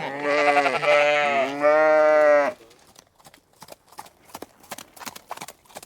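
Sheep bleating loudly in a few long, wavering calls over the first two and a half seconds, then only faint scattered clicks.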